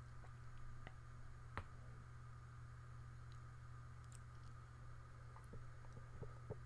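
Quiet room tone with a steady low hum and a few faint scattered clicks, the clearest about one and a half seconds in.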